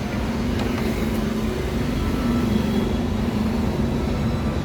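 A motor vehicle's engine running steadily nearby: an even low hum.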